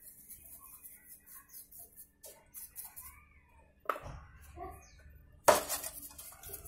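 Metal bearings being washed by hand in a metal tin of cleaning liquid: light splashing and small clinks, with a sharp clink about four seconds in and a louder knock, the loudest sound, about a second and a half later as parts are handled against the tin and set down.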